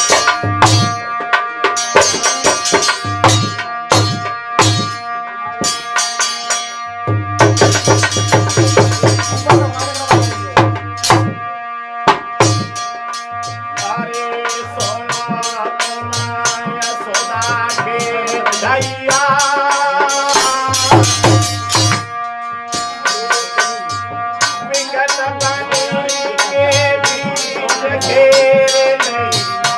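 A harmonium holds steady chords while a dholak keeps up a fast rhythm of drum strokes in a North Indian folk bhajan. A man's singing voice comes in over them for stretches in the second half.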